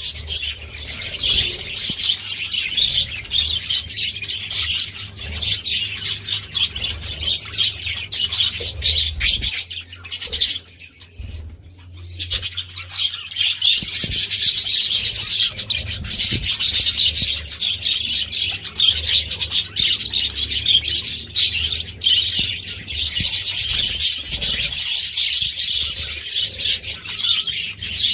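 A flock of budgerigars chattering and warbling continuously, with a brief lull about ten seconds in.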